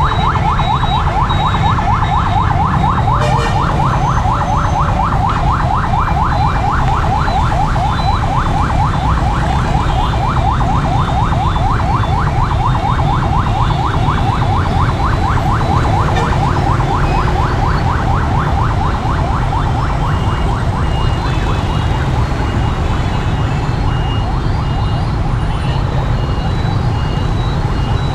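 Dense motorbike and scooter traffic: a steady low rumble of many small engines, with a fast-repeating whining tone over it and scattered short high beeps in the second half.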